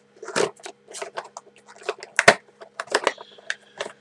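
Irregular clicks and rustles of a HeroClix booster pack being opened and its small plastic miniatures handled.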